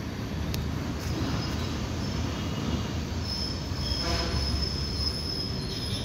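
Low rumble of a passing vehicle, with a long, steady high-pitched squeal that starts about three seconds in.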